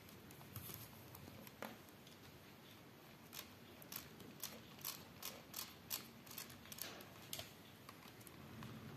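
Faint plastic clicking from the hand-wound front winch of a Lego Technic Jeep Wrangler (set 42122) as its string is reeled in: a run of short, irregular clicks at about two to three a second, starting about three seconds in and stopping a second or so before the end.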